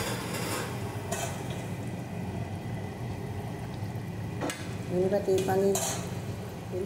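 Metal ladle stirring a simmering curry gravy in a karahi (wok), with a steady sizzling bubble and a few knocks of the ladle against the pan.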